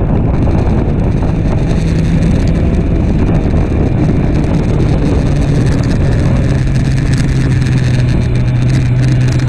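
BMW S1000RR inline-four sport bike engine running at speed on a racetrack, heard onboard with wind rushing over the microphone.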